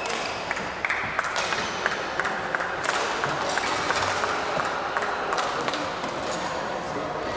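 Scattered hand-clapping from a small number of spectators: a run of sharp claps in the first few seconds that thins out, over the general noise of the hall.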